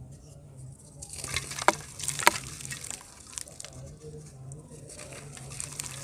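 Soft, dry dirt blocks being crushed and crumbled by hand: a dense crackling and crunching starts about a second in, with two sharp snaps near the middle, then lighter crumbling.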